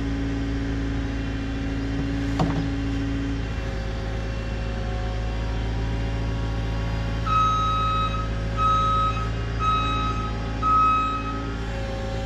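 A heavy machine's engine running steadily, with a backup alarm beeping four times at one pitch, about a second apart, in the second half. A single sharp click about two and a half seconds in.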